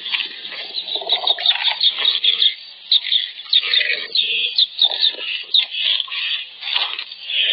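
A dense chorus of short, high chirping animal calls, many overlapping, with a few lower rising calls about a second in.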